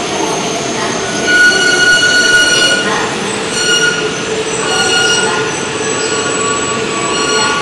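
JR Tohoku Shinkansen E4 series train running past the platform as it arrives and slows, with a steady rolling rumble. High-pitched wheel and brake squeals come and go over it, loudest from about a second and a half in.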